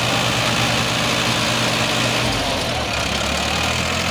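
Diesel engines of a Farmtrac 60 EPI and a Mahindra 575 tractor running hard under load, pulling against each other in a tug-of-war. The engine note drops a little about two seconds in.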